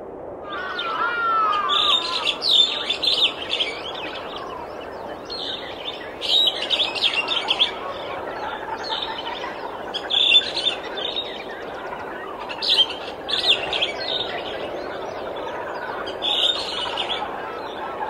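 Small birds chirping and trilling in five quick clusters a few seconds apart, with a warbling call about a second in, over steady low background noise.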